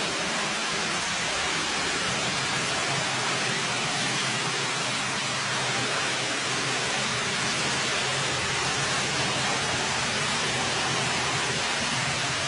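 A steady, even rushing noise that does not change, with no separate knocks, scrapes or strokes.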